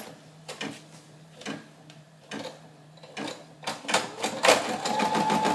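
Computerised embroidery machine starting up: a few scattered clicks, then about four seconds in it begins running, with a steady whine that carries on as it starts stitching.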